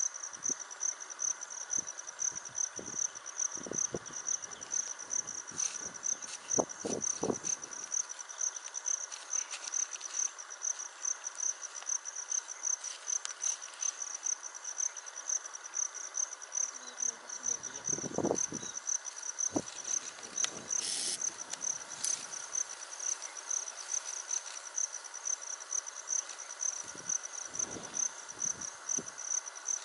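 An insect trilling steadily at a high pitch, pulsing about four to five times a second, with a few low thumps and rumbles in between.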